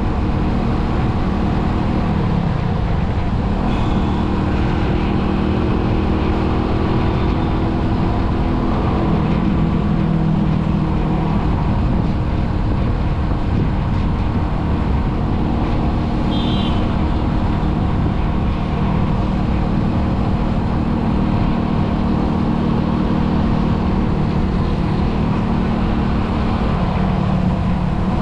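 Steady road noise from a moving vehicle and the traffic around it, with engine hum that rises and falls slightly in pitch. Two brief high beeps come a few seconds in and about midway.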